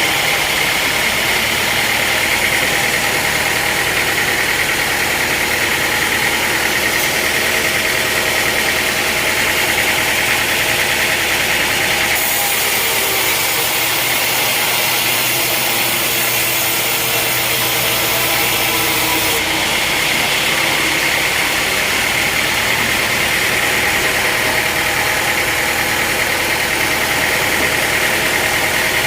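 Sawmill machinery running steadily with a constant engine-like drone and hiss. The sound changes abruptly about twelve seconds in and again about seven seconds later.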